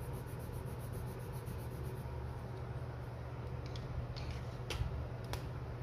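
Black Deli Arte Nuevo watercolour pencil scribbled back and forth on watercolour paper, a fast, even scratching that stops about two seconds in. A few light taps follow near the end over a steady low hum.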